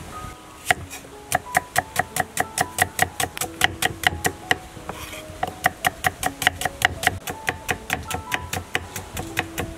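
A cleaver chopping shallots on a wooden cutting board: quick, even strikes of the blade on the board, about four or five a second, with a brief pause around the middle. Soft background music plays underneath.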